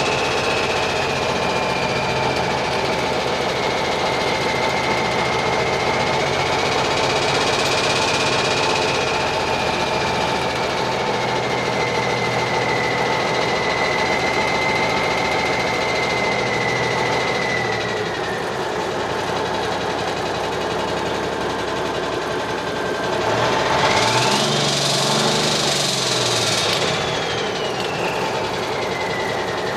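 Cummins Big Cam III diesel engine running with its Holset turbocharger whistling steadily, the whistle slowly sinking in pitch. About 23 seconds in the engine is revved: the turbo whistle sweeps sharply up, holds for about three seconds, then glides back down as the revs fall.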